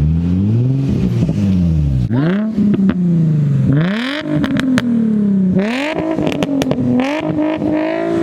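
Car engine revving hard and unevenly. Its pitch climbs, drops suddenly about two seconds in, then sags slowly before sweeping sharply up again twice more.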